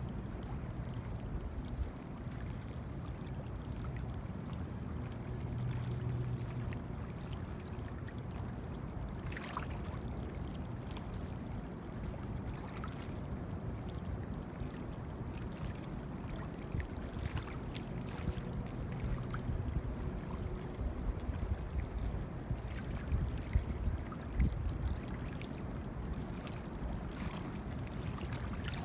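Small wind-driven ripples lapping and splashing among sticks and leaves at a pond's edge, with a steady low rumble of wind on the microphone and a few stronger gusts near the end.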